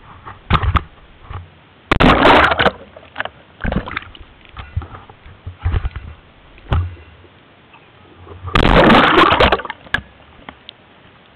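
Water splashing and sloshing close to the microphone in a string of short bursts, the two longest and loudest about two seconds in and again about nine seconds in.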